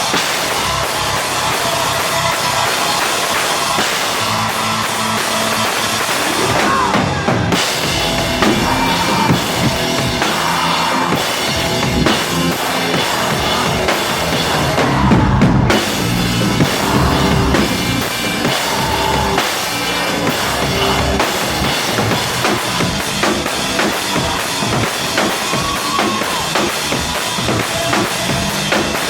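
Loud live rock music from a full band, with the drum kit's bass drum and snare driving it.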